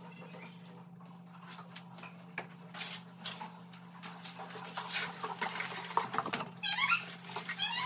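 A broom sweeping fallen plaster chips and dirt off a tiled floor, with scrapes and clatter that grow busier in the second half as the debris is gathered into a plastic dustpan. Near the end a high wavering whine-like call sounds a few times.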